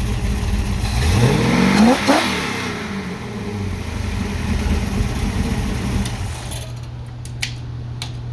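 Rebuilt 1969 390 V8 with a Holley 770 Street Avenger carburetor idling, then blipped once by the throttle about a second in: the pitch climbs quickly and falls straight back to idle. Two sharp clicks near the end over the steady idle.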